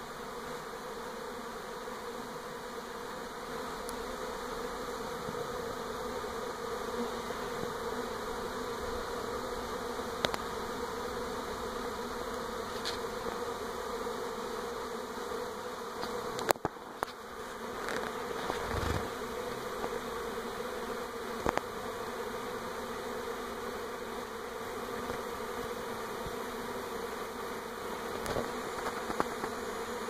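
Honey bee swarm in flight, a colony on the move to a new home: the steady, dense buzz of many bees at once. A few short clicks stand out over the hum.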